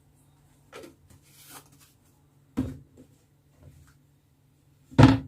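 A few short knocks and clacks of seasoning containers being handled and set down, with a brief hiss about one and a half seconds in; the loudest knock comes near the end.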